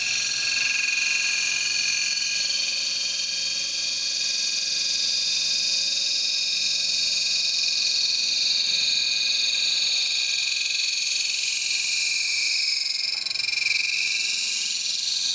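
Small paper cutter blade being finish-ground on an 11V9 CBN cup wheel turning at about 700 RPM: a steady, high-pitched grinding hiss with a faint held whine, wavering a little near the end.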